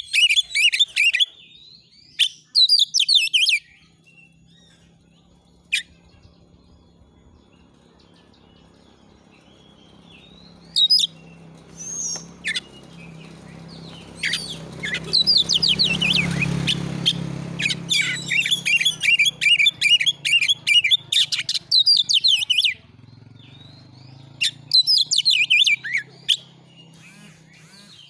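Oriental magpie-robin (kacer) singing in phrases of fast, repeated sharp high notes, broken by pauses, with the longest unbroken phrase near the middle. A low steady hum runs underneath and swells midway.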